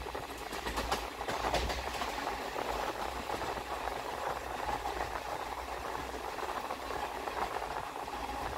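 Passenger train running along the track, heard from on board: a steady rumble of wheels on rail, with a cluster of short clicks between about half a second and two seconds in.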